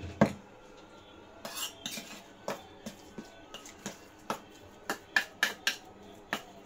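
A metal spoon clinking and scraping against a stainless steel bowl as a thick sago mixture is stirred, in irregular taps, with a sharp clink just after the start and a quicker run of clinks near the end.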